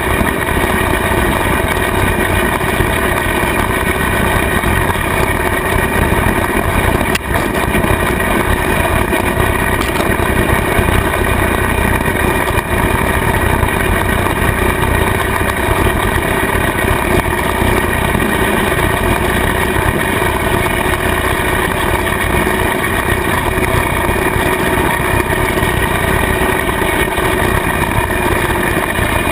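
Kubota tractor's diesel engine running steadily under load, driving a rotary cutter (bush hog) that is mowing tall grass; one continuous, even drone of engine and spinning cutter.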